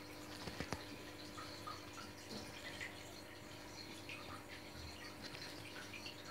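Aquarium water dripping and trickling, with small splashes scattered throughout over a faint steady hum. Two or three light clicks about half a second in.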